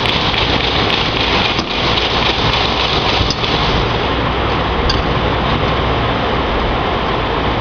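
Peanut roaster machine running: a steady, dense rushing noise with a low hum underneath.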